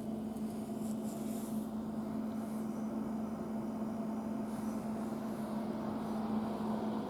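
Steady low hum over faint background hiss, with two brief faint high hisses, about a second in and about two-thirds through. No firework bangs.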